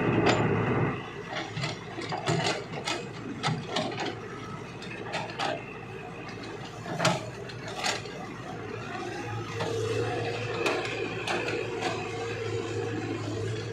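Excavator working: irregular sharp metallic clicks and clanks over a low steady hum, which gets louder about nine seconds in.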